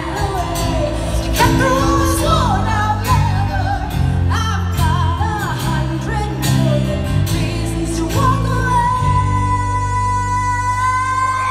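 Live band performance: a woman singing a pop ballad over acoustic and electric guitar with light percussion. About eight seconds in she holds one long note.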